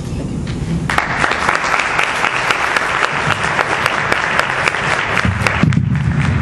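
Audience applauding. The clapping breaks out suddenly about a second in and keeps going.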